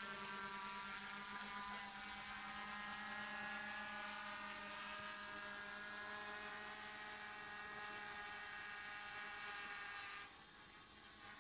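DJI F450 quadcopter in flight: its motors and propellers give a steady, multi-toned whine that drifts slowly in pitch, then drops away abruptly near the end.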